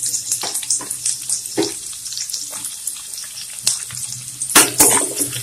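Chopped onion frying in hot oil in a kadai with a tempering of dried red chilies, cumin seeds, garlic and curry leaves: a steady sizzle full of quick crackles, with a burst of louder pops near the end.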